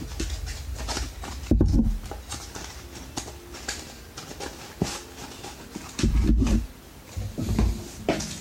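A Beyblade booster pack being handled and opened by hand: a run of crinkling and clicking of packaging, with three dull thumps.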